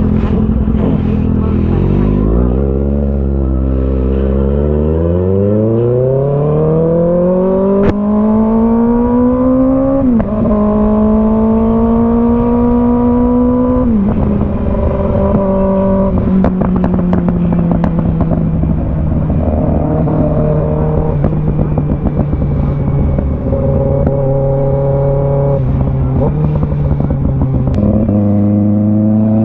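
Kawasaki ZX-6R's 636 cc inline-four engine under way. The revs climb steadily from low, dip briefly with a gear change about ten seconds in, drop again around fourteen seconds, hold fairly steady, then rise once more near the end.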